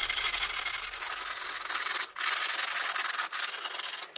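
Abrasive paper being rubbed by hand over a deer-antler knife handle: a steady, rough sanding hiss, with a couple of brief breaks between strokes.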